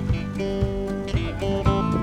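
Background music led by plucked acoustic guitar with a steady beat.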